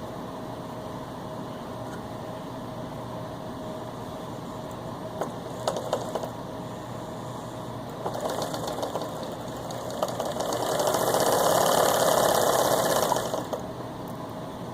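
Antique Willcox & Gibbs chain stitch sewing machine, driven by an electric motor, stitching through fabric: a couple of short bursts of rapid stitching, then a louder run at speed for about three seconds that stops abruptly near the end.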